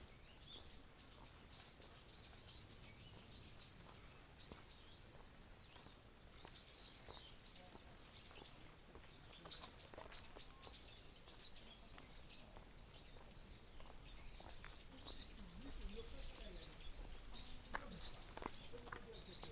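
Small birds chirping faintly in quick runs of short, high notes, one run after another.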